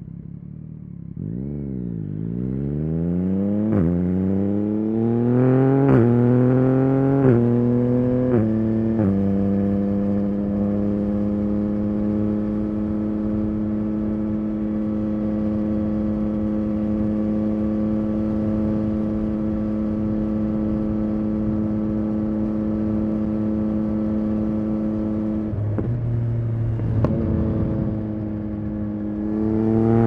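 Yamaha XSR900's inline-three engine through a Spark aftermarket exhaust, pulling away and accelerating hard through several quick upshifts, the pitch climbing and breaking at each shift. It then holds a steady cruising pitch, drops back briefly near the end and rises again as the throttle is opened.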